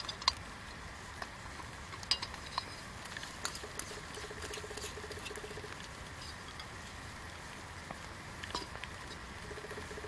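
Small metal clicks and taps as a folding gas stove burner is screwed onto a threaded gas canister, with a short rapid rasp of the threads twice, about four seconds in and again near the end.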